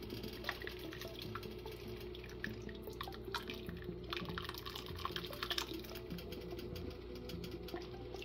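Thick white chicken chili stirred and scooped with a ladle in a Dutch oven: wet sloshing, with irregular small drips and splats as it pours back off the ladle. A steady low hum runs underneath.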